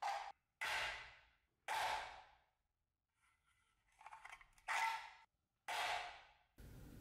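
Mosin-Nagant bayonet point stabbing into thin sheet metal clamped in a vise: five sharp metallic hits, each ringing and dying away within about a second, with faint scraping between the third and fourth.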